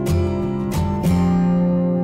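Background music: an acoustic guitar strumming chords, a few strokes and then a chord left ringing.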